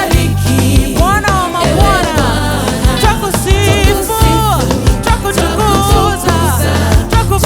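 Worship music: a singer's melody with vibrato over a band with a heavy bass line and a steady beat.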